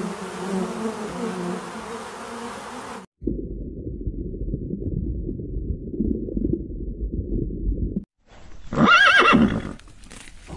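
A swarm of honeybees buzzing on the comb for about three seconds, then a low, muffled underwater rumble. Near the end a horse whinnies once, loudly, its pitch rising and falling.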